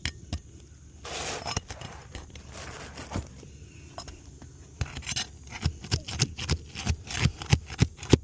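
Tools scraping and tapping at roof shingles as the work of prying them loose begins. A scrape comes about a second in, then scattered clicks, and in the second half a run of quick sharp taps, about three a second, that grows louder.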